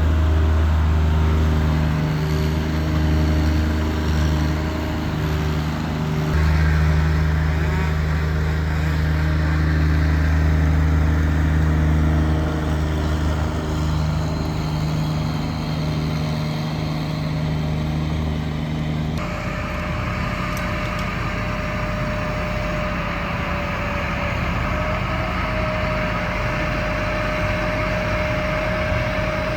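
Engine-driven tree-removal equipment running steadily with a low engine drone. About two-thirds of the way through it changes abruptly to a different steady machine sound with a held whine.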